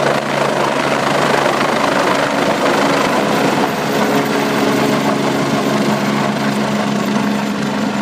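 Agusta A109 Power twin-turbine helicopter lifting off and climbing away, its rotor and engines giving a loud, steady noise that eases slightly near the end as it draws off.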